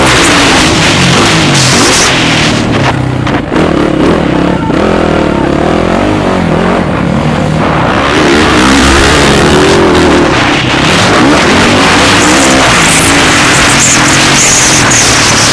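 Motocross bikes' engines revving up and down as they race, several pitches rising and falling over one another.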